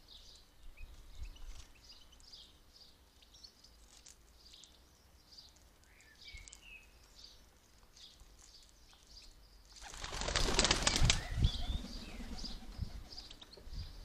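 European goldfinches twittering in short, high chirps throughout. About ten seconds in comes a loud flurry of wing flapping lasting over a second.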